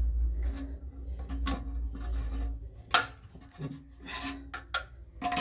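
Rubbing and scraping of toilet plumbing parts being handled and fitted, with scattered clicks and one sharp click about three seconds in. A low rumble runs under the first half.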